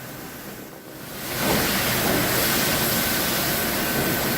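Sawmill machinery running: a steady rushing noise with a thin high whine, which comes up loud about a second in.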